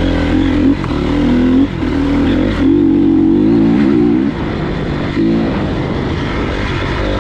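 2013 Honda CRF250R's single-cylinder four-stroke engine revving in repeated bursts of throttle while being ridden, the longest burst near the middle, then easing back to a lower drone.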